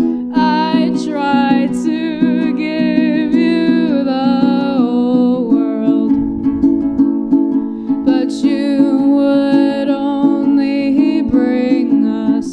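A ukulele strummed steadily, with a voice singing a wavering melody line over it that comes in about half a second in.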